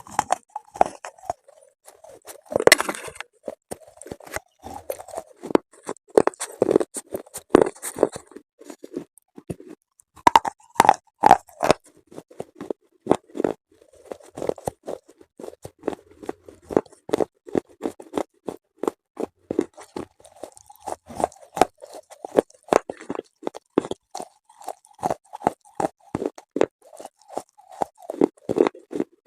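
A person biting and chewing hard, brittle pieces close to the microphone, in the style of slate-pencil eating ASMR: a rapid run of sharp crunches, several a second, with a short lull about nine seconds in.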